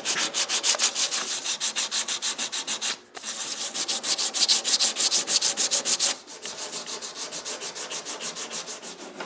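Hand sanding with 100-grit sandpaper over an epoxy putty patch on a painted pedal harp body, levelling the filled spot: quick scratchy back-and-forth strokes, about six or seven a second. There is a brief pause about three seconds in, and the strokes turn softer from about six seconds on.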